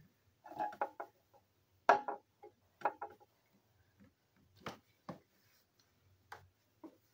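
A string of light, irregular clicks and knocks, about seven in all, the loudest about two seconds in.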